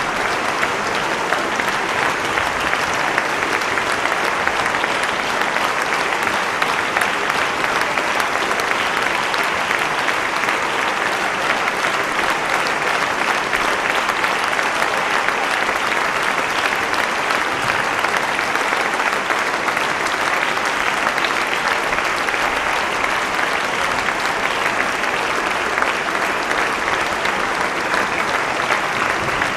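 Large concert-hall audience applauding steadily, a dense unbroken sound of many hands clapping.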